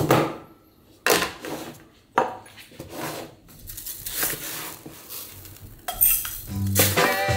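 A plastic scoop digging into a plastic tub of uncooked rice and rice grains pouring into a glass tumbler. Three sharp knocks in the first two seconds are followed by a softer rustle of grains, and music begins near the end.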